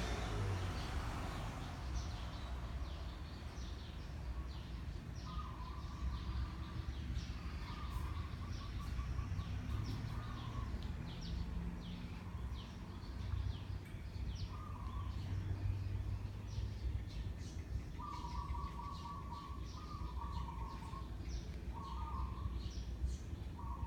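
Steady low hum of a running 56-inch Sunwindy ceiling fan, with birds calling over it: short buzzy trills repeated every second or two and many sharp, high chirps.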